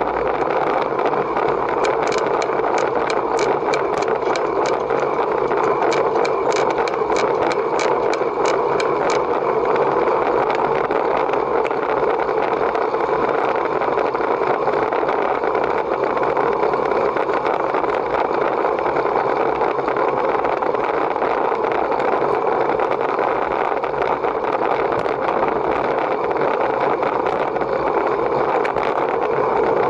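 Steady running noise of a vehicle in motion, with a mid-pitched hum. In the first third it carries a run of evenly spaced sharp ticks, about three a second.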